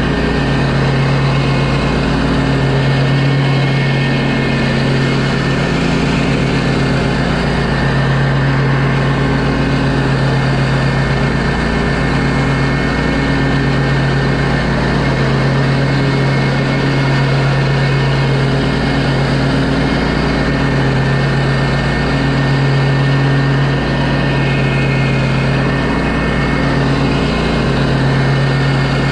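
Exmark stand-on mower's engine running steadily while cutting grass, a constant low drone with no change in speed.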